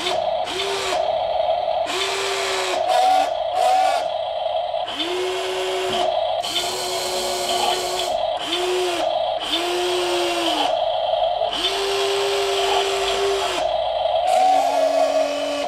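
Brushed electric motors of a 1:14 metal RC excavator whirring in about eight short runs as the boom and bucket move, each spinning up and winding down, lasting half a second to two seconds, the last one lower in pitch. Underneath, the model's sound module plays a steady buzzing engine hum.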